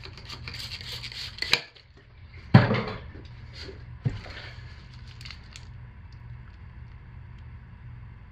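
A trigger spray bottle spritzing rubbing alcohol in a quick run of hissing sprays. About two and a half seconds in there is one loud thump, and a little after four seconds a smaller click, over a low steady hum.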